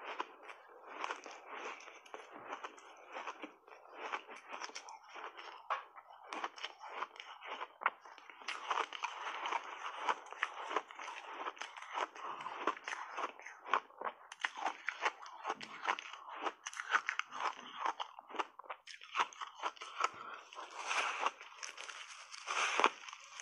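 Close-miked crunching and chewing of matcha-coated refrozen ice chunks: dense, irregular cracking crunches, with the loudest bites coming near the end.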